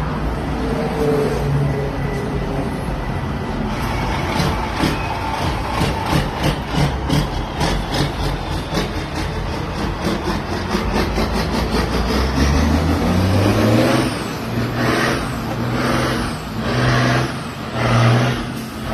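Caterpillar-powered Western Star dump truck's diesel engine running. A rapid rattling pulse runs through the middle, then the engine pitch rises and the engine surges about once a second as the truck pulls away.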